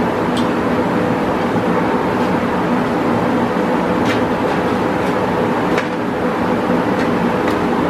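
A steady machine hum with several fixed tones, with a few faint clicks now and then.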